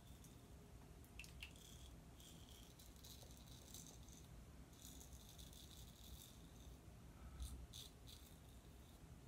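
Merkur Progress double-edge safety razor scraping through lathered stubble on the neck and chin on the second pass: faint, crisp scratching in a series of short strokes.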